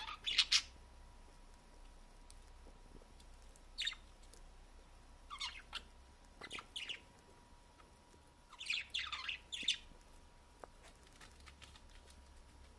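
Pair of courting budgerigars chirping in short scattered bursts of quick high chirps, loudest at the start and in a cluster about two-thirds of the way through.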